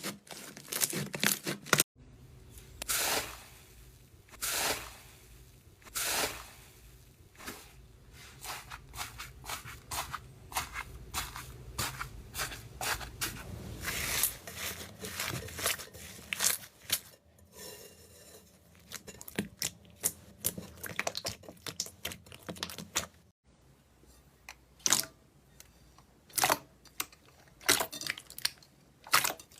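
Slime being pressed, poked and stretched by hand, giving an irregular run of crackling, popping and tearing clicks. There are abrupt changes between clips about two seconds in and again about three-quarters of the way through.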